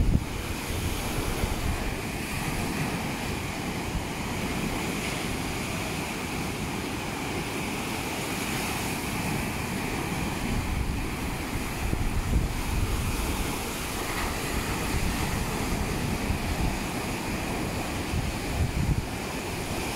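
Rough Black Sea surf breaking and washing up a rocky sand beach in a steady rush of whitewater, with gusts of wind buffeting the microphone.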